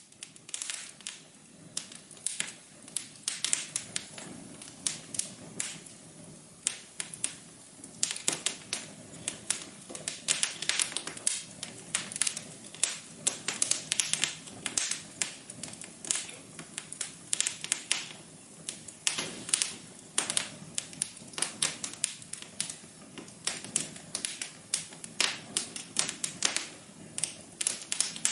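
Wood fire crackling in a fireplace: a constant run of irregular sharp pops and snaps over a soft hiss.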